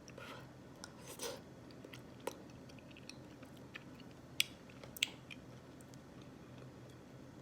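Someone eating oatmeal from a spoon: soft chewing and mouth sounds, with a few sharp clicks spread through it.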